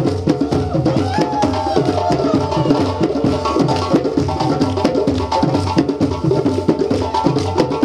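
Djembe drum ensemble playing a fast, dense traditional West African Malinke rhythm, many strokes a second without a pause.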